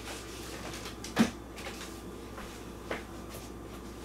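Two knocks from large plastic toy robots being handled: a sharp one about a second in and a fainter one near three seconds, over a low steady hum.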